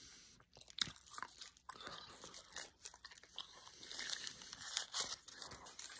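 A person biting into and chewing a snack held in a paper wrapper: faint, irregular crunching.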